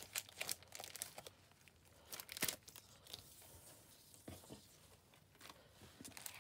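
Clear plastic gift wrap crinkling and crackling as hands pull it open and off, in scattered short crackles, the sharpest about two and a half seconds in.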